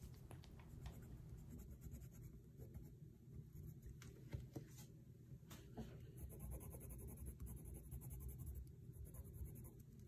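Faint scratching of a colored pencil shading on drawing paper, in short uneven strokes, with a few light ticks of the lead touching down.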